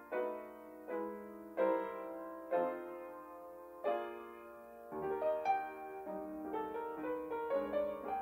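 Background piano music: slow, ringing chords struck about once a second, then a quicker run of single notes from about five seconds in.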